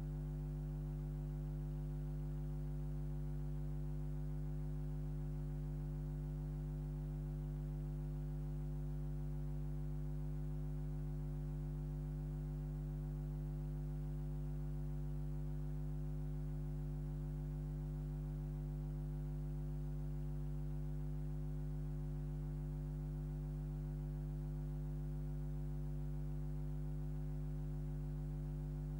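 Steady, unchanging low electrical mains hum with a buzz of overtones; no live sound from the silent 8mm film.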